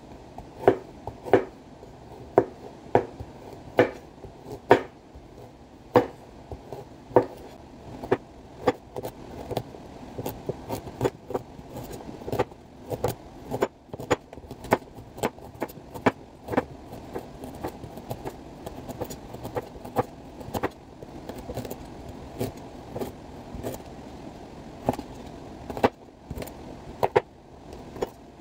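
Kitchen knife chopping a raw carrot on a cutting board: a long run of sharp, irregular knocks, about one to two a second.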